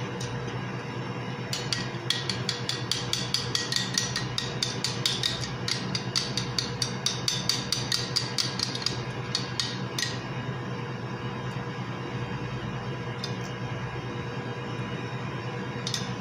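A utensil clinking rapidly against the sides of a small ceramic bowl as salad dressing is whisked, about five clinks a second, stopping about ten seconds in, with a couple of single clinks after.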